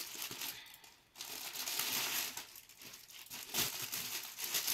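Plastic packaging crinkling and cloth rustling as hands handle a packed suit, in uneven bursts.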